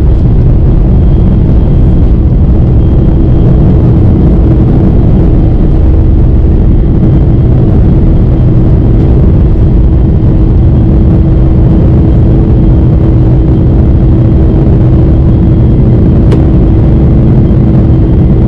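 Boeing 747-400 heard from inside the passenger cabin under engine power: a loud, unbroken rumble with a steady hum through it.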